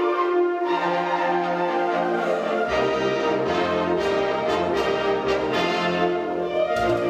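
Wind ensemble playing, with brass chords to the fore; lower parts join about a second in, and a deeper bass line about three seconds in.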